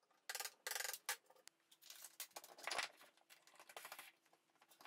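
A wooden mallet striking a wood chisel a few times in quick succession about half a second in, chopping a recess into a wooden block. Then only faint, scattered clicks and light knocks.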